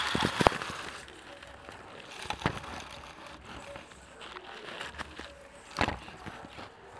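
Handling noise of a camera being pushed in among Christmas tree branches: rustling in the first second, then scattered knocks and clicks, the loudest near the end.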